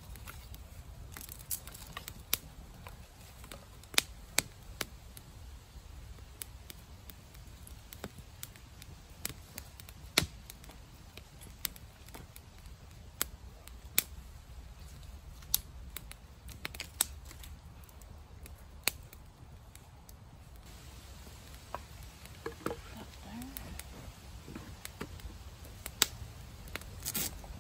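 Small fire of birch bark and twigs crackling in a portable fire grill, with sharp irregular snaps and pops about once a second over a low steady background.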